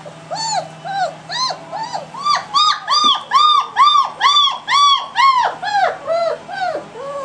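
Three-week-old German Shepherd puppy crying in a long run of short whimpering yelps that rise and fall in pitch, about two or three a second, getting louder and higher in the middle before easing off.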